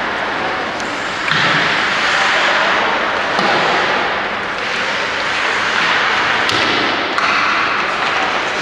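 Ice hockey play on a rink: a steady scraping hiss of skates on the ice with rink noise, and one sharp knock of a stick or puck about six and a half seconds in.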